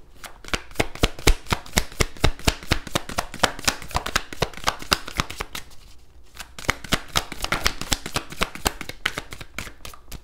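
A deck of cards being shuffled by hand: a fast run of crisp card flicks, with a short pause about six seconds in before the shuffling starts again.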